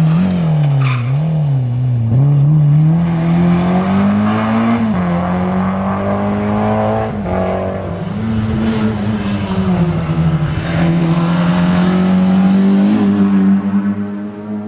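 Peugeot 205 rally car's four-cylinder petrol engine being driven hard, its note repeatedly climbing and dropping as the car accelerates and lifts.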